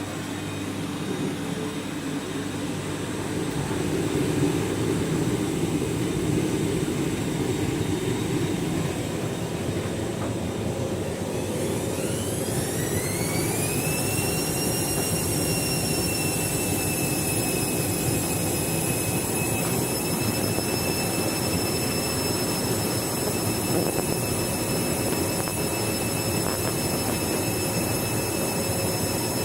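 Candy washing machine spinning up: a low rumble of the drum, then about twelve seconds in a motor whine rises in pitch and settles into a steady high whine as the spin reaches full speed.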